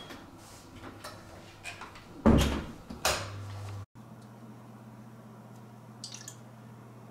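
Knocks and clatters in a small room, with two heavy thumps about two and three seconds in. The sound then cuts off abruptly and a steady low hum follows, with a few faint clicks.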